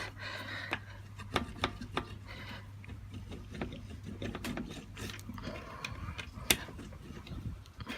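Thin copper fins being rubbed and pressed flat with a hand tool on a bench: irregular scraping and sharp clicks of metal on metal.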